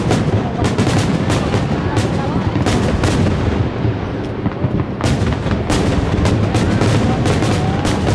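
Fireworks display: aerial shells bursting in rapid succession, many sharp bangs overlapping over a steady low rumble. The bangs thin out for a moment about three seconds in, then come thick again from about five seconds in.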